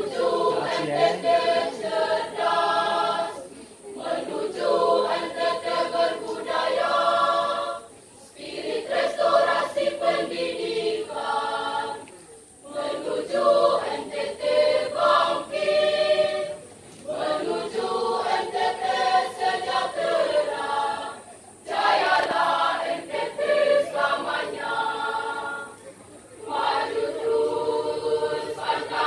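School choir of teenage girls and boys singing together, in phrases of about four seconds with brief breaks between them.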